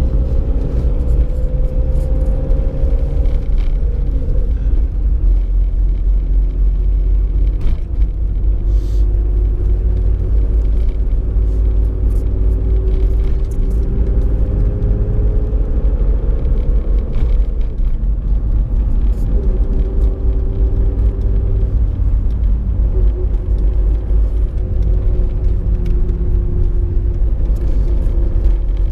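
Car driving slowly, heard from inside the cabin: a steady low rumble of engine and road, with the engine note slowly rising and falling as it speeds up and eases off.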